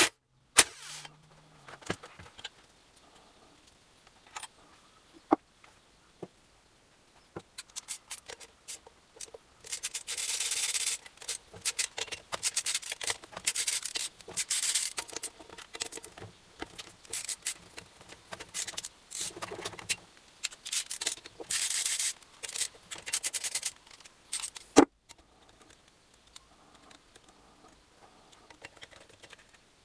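Quick back-and-forth rubbing strokes, as in hand sanding or scrubbing, coming in runs from about a quarter of the way in until about four-fifths through. A few sharp clicks come before them, and one loud knock follows just after they stop.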